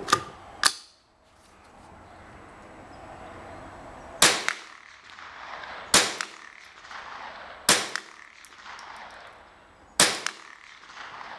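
Shots from a tube-fed Marlin .22 LR rifle: six sharp cracks, two close together at the start, then four more roughly two seconds apart, each with a short echo tail.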